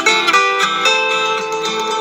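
Background music of plucked string instruments, guitar-like, playing a melody of quick repeated notes.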